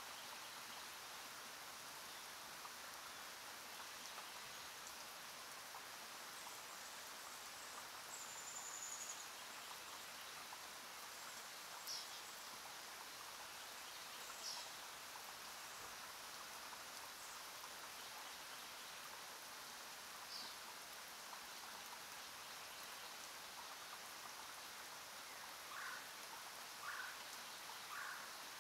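Faint steady hiss like light rain, with a few short high chirps scattered through it and three lower ones close together near the end.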